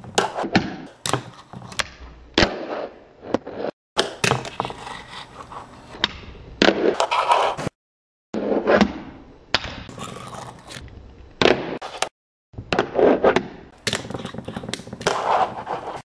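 Fingerboard wheels rolling and scraping on a small concrete bank ramp, with sharp clacks from tail pops and board landings on the concrete and the desk. Several short takes, each cut off by a sudden gap of silence.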